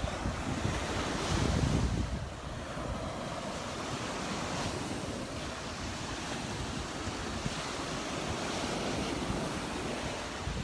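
Small surf breaking and washing on a sandy beach, under steady wind buffeting the microphone, with a louder stretch about a second in.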